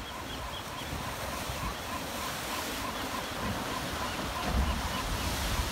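Ocean surf washing and breaking against sandstone sea cliffs, with a heavier surge of water against the rock near the end. Wind buffets the microphone, and a quick run of short faint calls repeats about three times a second.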